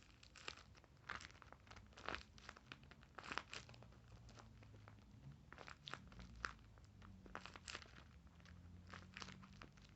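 Faint, irregular crinkling and crackling of a taped paper squishy being handled and squeezed, a scatter of soft paper-and-tape crackles.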